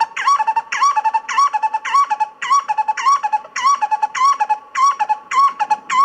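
A bird call repeated nearly twice a second. Each phrase is a rising-and-falling note followed by two or three short clipped notes a little lower.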